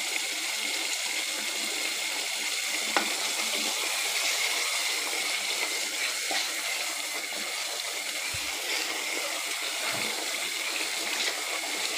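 Chicken curry gravy sizzling in its oil in a pot as it fries, a steady hiss, while a spoon stirs it; one short click about three seconds in.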